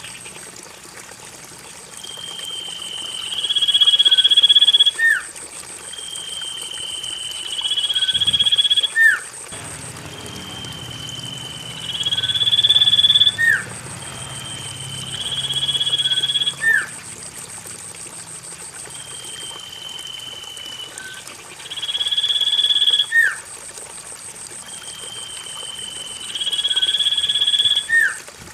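Common iora (cipoh) call played as a repeating loop: a drawn-out whistled note that steps up in pitch, with a lower note ending in a quick upward flick. The phrase comes six times, about every four and a half seconds, over a faint trickle of water.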